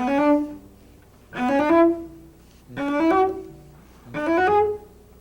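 Cello played with the bow: four short phrases of a few notes each, every phrase climbing quickly in pitch and starting a step higher than the last.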